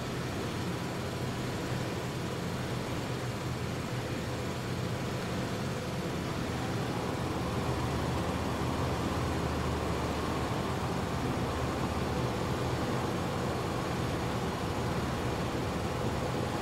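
Steady running noise of a train and its depot train-wash machine, with a low hum and a few faint steady tones, growing a little louder about seven seconds in.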